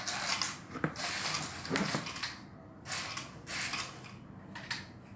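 A remote-controlled robot dog toy's small electric motors and plastic gears whirring in short, stop-start bursts as it moves on its wheeled paws, with a few clicks in between.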